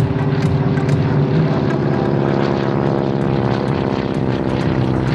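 Propeller aircraft engine droning steadily as the plane flies past in the dark, its pitch sinking slightly a little past the middle.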